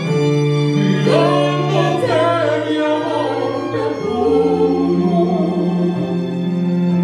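Live string ensemble of cello and violins holding sustained chords, with a singer's voice through a microphone entering about a second in and carrying the melody over them.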